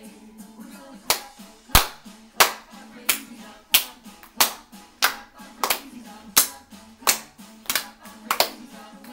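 Hand claps in a steady beat, about one and a half a second, starting about a second in and much louder than the children's sing-along music playing underneath.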